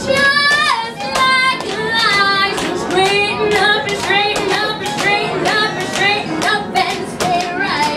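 A young girl singing a swing tune into a microphone, her voice sliding between notes in short phrases, over the band's accompaniment with sharp percussive taps keeping the beat.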